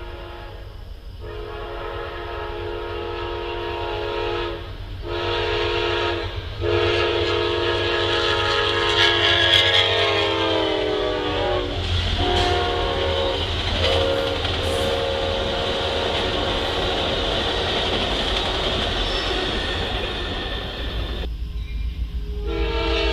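Amtrak passenger train's locomotive horn sounding the grade-crossing signal, long, long, short, long, the last blast dropping in pitch as the locomotive passes. The passenger cars then rush by at speed with a steady rumble. Near the end another train's horn starts up.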